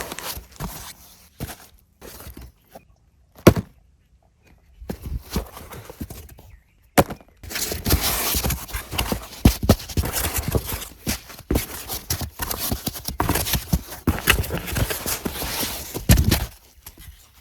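Handling noise from unboxing a toy tractor model: scattered clicks and knocks, then about nine seconds of continuous rustling and scraping with clicks running through it.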